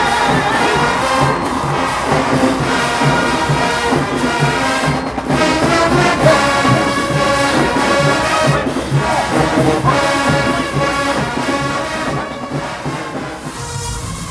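HBCU-style marching band playing, a full brass section of trombones and trumpets sounding over a steady low beat of about three to four pulses a second.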